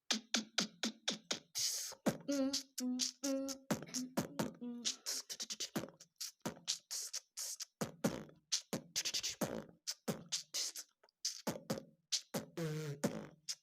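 A man beatboxing: fast mouth-made drum hits and hissing cymbal sounds, with short hummed notes mixed in, imitating a music track with his voice alone.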